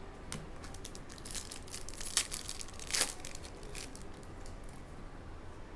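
Prizm basketball trading cards being handled and flipped through one by one, a light rustle and crinkle with scattered clicks and two sharper snaps about two and three seconds in.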